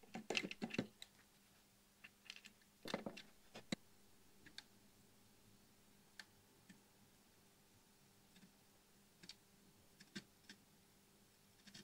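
Faint, scattered light clicks and taps of pliers and wire leads against the metal turrets of a tube amp's turret board, over a faint steady hum. A quick cluster comes in the first second and the loudest pair about three seconds in, then single ticks every second or two.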